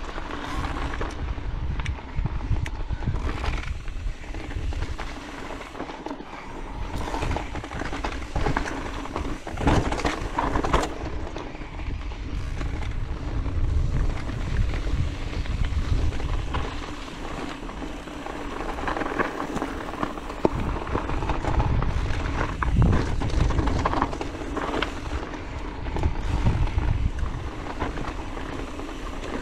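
Orbea Wild FS electric mountain bike riding over rocky gravel singletrack: tyres crunching over stones, the bike rattling and clicking over bumps, with a low rumble of wind on the microphone.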